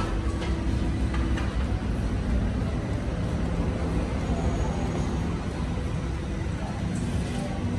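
Steady low rumble of road traffic, with faint engine hum passing through.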